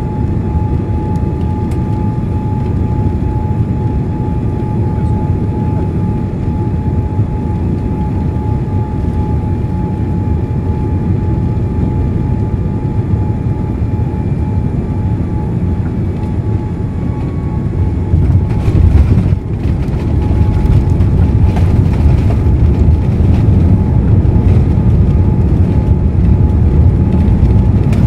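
Cabin noise inside a Boeing 787-8 Dreamliner on landing: a steady low rumble with a faint constant whine. About two-thirds through, the wheels touch down with a burst of rattling and jolts, and the rumble then grows louder as the jet rolls out on the runway.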